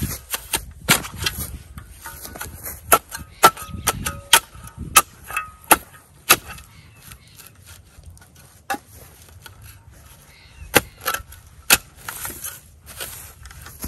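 Square-nosed shovel chopping and scraping into grassy sod and soil: a run of sharp, irregular strikes, thinning out in the middle and picking up again near the end.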